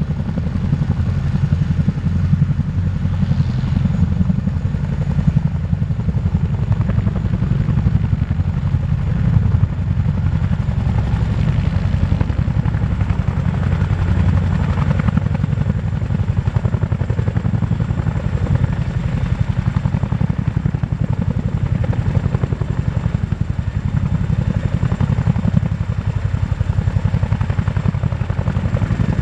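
Boeing CH-47F Chinook's tandem rotors and twin T55 turboshaft engines at high power as the helicopter lifts off into a low hover: a steady, deep, rapid rotor chop.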